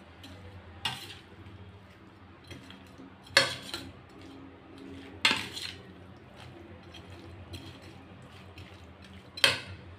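Large steel spoon scraping and clinking against a stainless steel plate while mixing raw chicken, onion and potato with spice powders and mustard oil. Four sharper clinks stand out, about one, three and a half, five and nine and a half seconds in, with lighter scrapes and ticks between.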